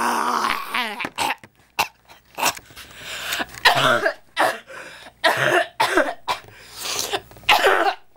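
A person coughing and clearing their throat in a run of short, sharp bursts, about a dozen over several seconds with pauses between them.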